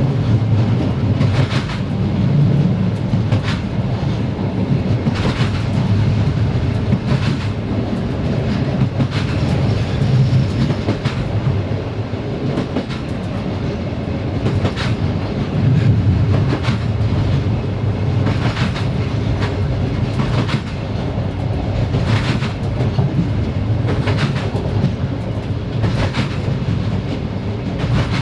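Passenger train running along the line: a steady low rumble of wheels on rails, with a sharp clickety-clack every second or two as the wheels pass over rail joints.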